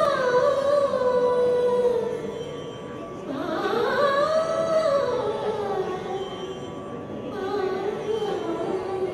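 Carnatic music: a high voice sings long, slow notes that glide up and down in pitch, in three phrases with short pauses between them.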